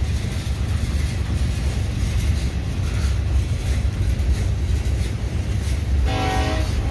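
Norfolk Southern freight train's cars rolling past close by with a steady low rumble. The locomotive horn sounds briefly near the end.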